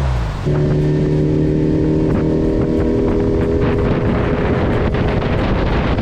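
Outboard motor of a Bass Tracker bass boat running steadily at speed, with wind and water noise rushing over it.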